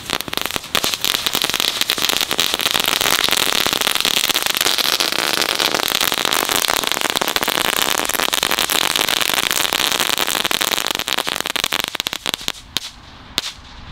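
Knetterkogels, small Category F1 crackling-ball fireworks, crackling. It is a dense, continuous rattle of tiny sharp pops that stops suddenly near the end.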